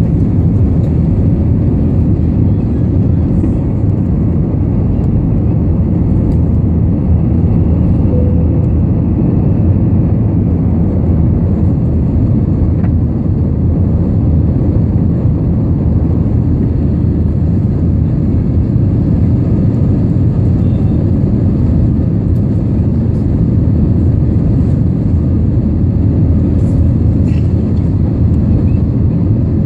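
Airbus A320's jet engines at takeoff power, heard inside the cabin over the wing: a loud, steady low rumble through the end of the takeoff roll and the climb-out.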